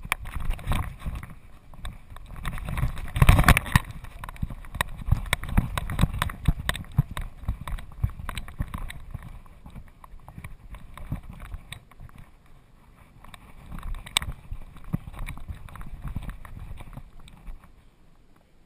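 A Doberman walking over bare rock, heard from a camera strapped to its back: a dense, irregular run of clicks, scrapes and knocks from its footfalls and the jostling harness, with low rumbling handling noise, loudest about three and a half seconds in.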